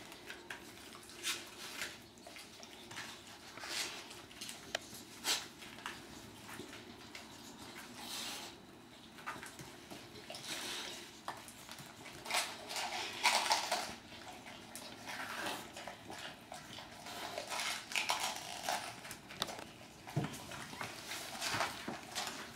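A boxer dog biting at and pushing a whole head of cabbage across a hard tiled floor: irregular crunches, scrapes and knocks of teeth on leaves and cabbage on floor.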